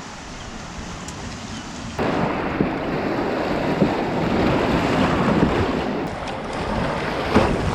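Wind buffeting the microphone over the wash of sea waves, a rough steady rushing that turns abruptly louder about two seconds in.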